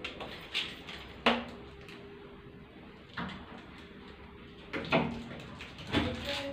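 Short, sharp knocks and clicks of a metal lever-handle lockset being handled and fitted against a wooden door: about half a dozen separate knocks, the loudest about a second in and several more in the last two seconds.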